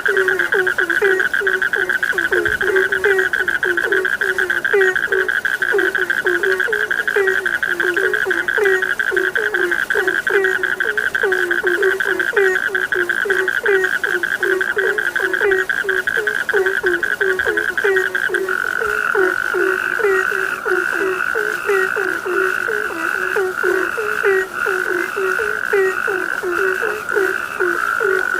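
Frogs calling in chorus: short low croaks repeating several times a second under a continuous, fast-pulsed high trill. The trill changes about eighteen seconds in, becoming slower and more broken.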